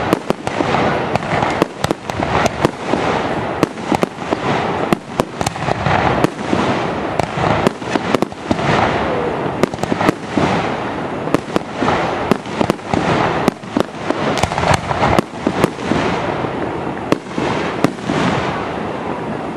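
Aerial fireworks shells bursting close overhead in rapid succession: sharp bangs, often several a second, over a continuous dense rumble, thinning out near the end.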